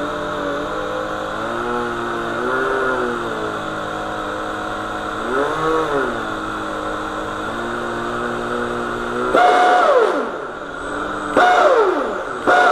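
RC hydroplane's electric motor and flex shaft running out of the water with a steady whine that rises and falls in pitch twice. About nine seconds in come three louder throttle blips, each falling steeply in pitch as the throttle is let off.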